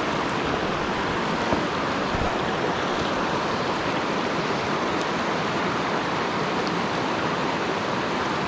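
Shallow mountain river rushing over rocks in riffles: a steady, even rushing of water.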